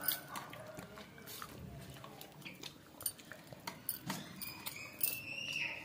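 Faint scattered clicks and light clinks of a meal eaten by hand from stainless steel plates and bowls. A faint high tone lasting about a second comes near the end.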